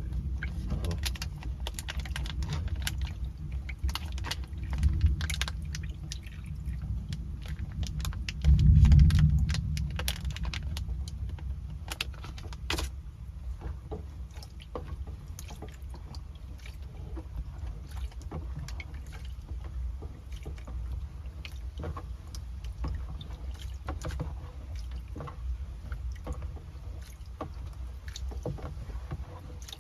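Steady low rumble of wind and heavy rain, with scattered clicks and knocks of things being handled and a loud low rumble lasting about a second and a half around nine seconds in.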